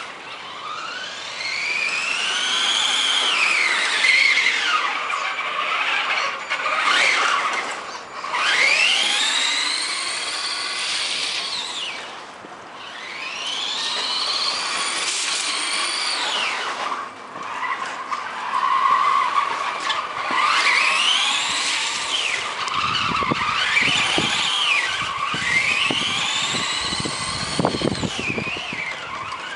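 Electric radio-controlled car's motor whining, its pitch rising and falling again and again as the car speeds up and slows down, over a steady hiss from the wet pavement. A few low knocks come in over the last several seconds.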